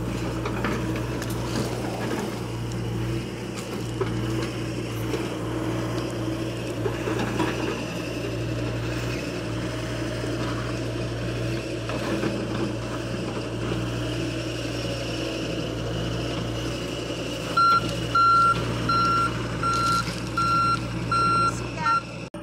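John Deere 60G compact excavator's diesel engine running steadily while it digs, with a few knocks of the bucket in the dirt. Near the end its travel alarm beeps about six times, evenly spaced, as the machine starts to track.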